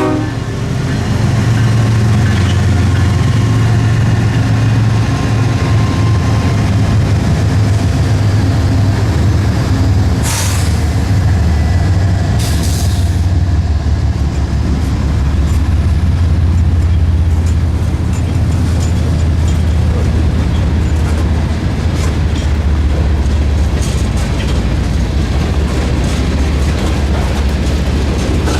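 Diesel-hauled freight train passing close by: a loud, steady low rumble of locomotive engines and rolling cars, with two brief hissing bursts about ten and twelve seconds in and scattered sharp clacks later on.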